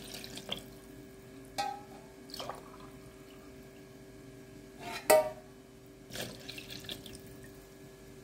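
Milk pouring into a plastic blender jar, then a few light knocks and taps as the bottle and jar are handled, the loudest about five seconds in.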